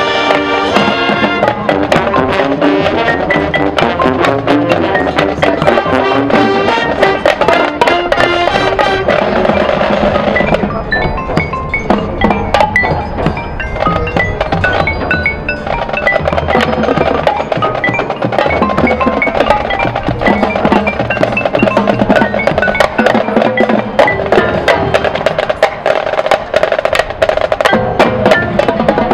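Marching band playing its field show: brass and drumline together with many sharp percussion hits. From about ten seconds in to about sixteen seconds the full band thins out and the front ensemble's mallet percussion rings out clearly, then the full band comes back in.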